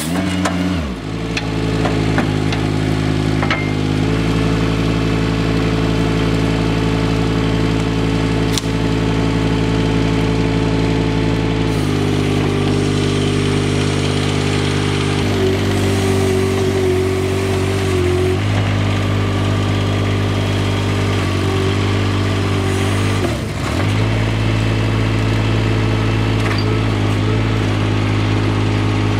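Small engine driving the Kranman P25 log processor runs steadily throughout. Its note shifts several times as the hydraulics are worked: a higher whine joins for about three seconds past the middle, and the engine dips briefly a few seconds before the end. The saw cut finishes right at the start.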